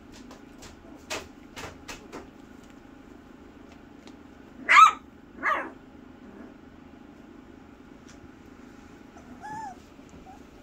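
Three-week-old miniature Bordoodle puppies yipping: two sharp high yips close together about halfway through, the first the loudest, and a short whimper near the end. A few faint clicks come in the first couple of seconds.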